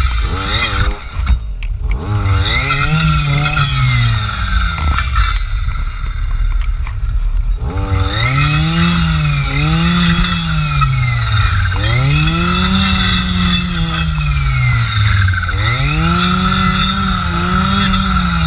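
Jonsered FC 2256 W clearing saw with a circular saw blade, its two-stroke engine revving up and falling back again and again as the blade is worked through brush. The revs swell and drop about every one and a half to two seconds, with a steady high whine running underneath.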